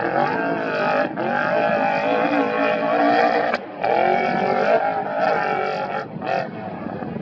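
Off-road race vehicle engine running hard at high revs, its pitch wavering, with two short drops in sound, then easing off near the end.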